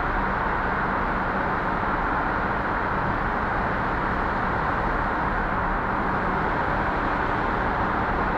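Steady road and tyre noise of a car driving through a road tunnel, heard from inside the cabin: an even rushing roar with a faint low engine hum beneath it.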